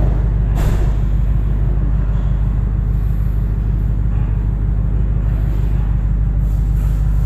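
JBL subwoofers in a custom car-trunk install playing a loud, steady deep bass rumble, with a brief knock about half a second in.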